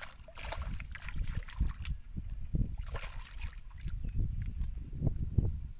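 Hands groping and splashing in shallow muddy water, with irregular wet sloshes and a couple of brighter splashes.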